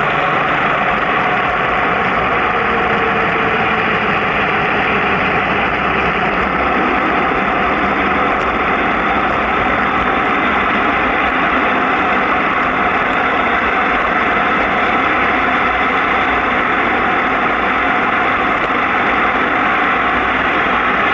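Steady rush of wind and road noise on a vehicle descending a mountain road at about 40 to 60 km/h. A faint falling tone a few seconds in is likely an oncoming car passing.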